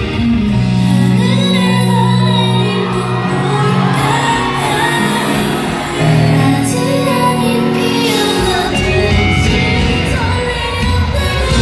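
Live ballad performance: female vocals singing a slow melody over held accompaniment, with the echo of a large concert hall.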